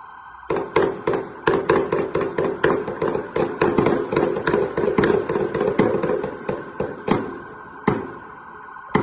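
Rapid gunfire: a long volley of shots, several a second for about six seconds, then a few single shots spaced out near the end, over a steady held tone.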